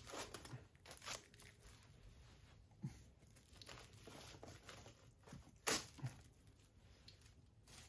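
Blu-ray SteelBook packaging being handled and unwrapped: irregular crinkling and tearing rustles, loudest about six seconds in.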